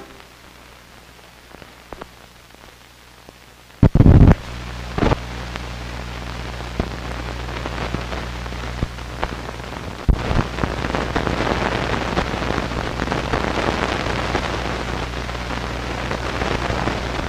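Blank film leader playing through the optical sound track after the film's music ends: a steady mains hum with scattered crackle and pops from dust and scratches, a loud burst of crackle about four seconds in, then hiss and crackle rising and growing denser after about ten seconds.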